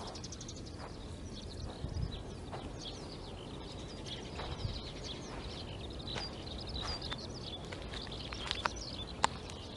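Small birds chirping and twittering over and over throughout, high-pitched and short, over a steady low background rumble, with a few faint taps and rustles.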